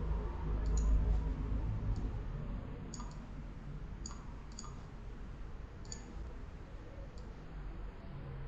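Computer mouse clicks, about seven spaced roughly a second apart, over a steady low hum.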